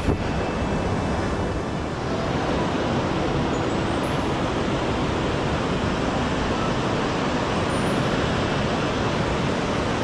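Mountain stream rushing: a steady, unbroken sound of fast-flowing water.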